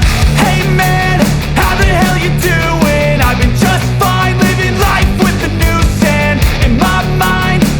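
Loud rock music with a driving beat and a sung or lead melody over it.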